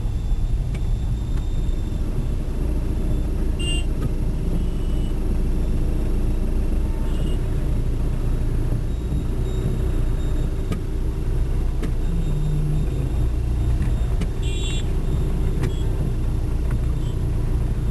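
Steady low rumble of a car driving along a city road, heard from inside the car: engine and tyre noise. A few short high-pitched blips come through about 4, 7 and 15 seconds in.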